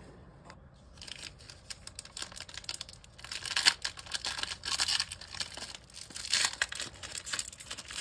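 Wrapper of a Panini Legacy football card pack being torn open and crinkled by hand: irregular crackling tears starting about a second in, loudest around three and a half and six and a half seconds.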